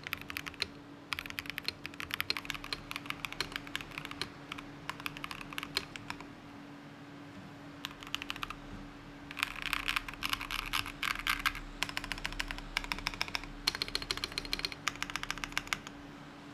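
Typing on a custom mechanical keyboard with an anodized aluminium case, silicone-pad mount, Gateron G Pro V2 switches and PBT dye-sub keycaps: fast runs of keystrokes, with a pause of about two seconds some six seconds in.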